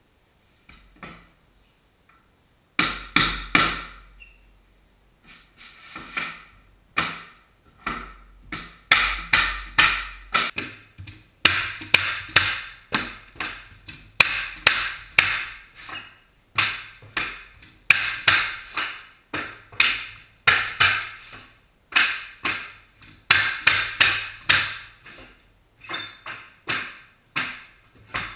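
Pneumatic hardwood floor stapler being struck and fired, staple after staple: sharp ringing whacks in quick groups of two or three, about two a second, starting about three seconds in and running on steadily from about six seconds.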